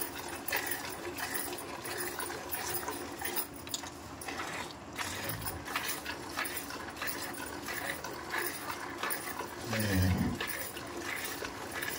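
Milk squirting from a cow's teats into milk in a steel pot during hand milking, a steady rhythm of short hissing spurts as the hands squeeze in turn. A brief low sound comes near the end.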